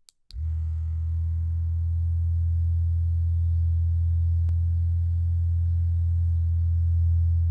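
Vibrator switched on with a click just after the start, then running with a steady low buzz.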